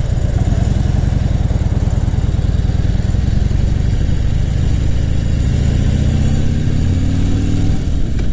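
Harley-Davidson Fat Bob's V-twin engine running at low revs, then pulling away with the engine note rising steadily in pitch over the second half.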